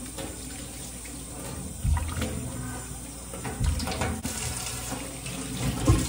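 Bathroom tap running into the sink while the face is rinsed by hand, with three splashes of water about two seconds apart.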